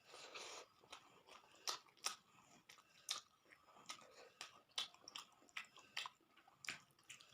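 Close-up mouth sounds of a person eating rice and curry: irregular chewing with many short, wet clicks and a few crunches.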